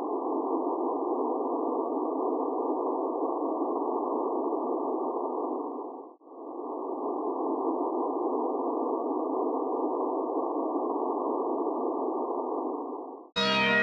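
A steady, muffled drone of noise with no tune. It breaks off briefly about six seconds in and stops shortly before the end, where music cuts in.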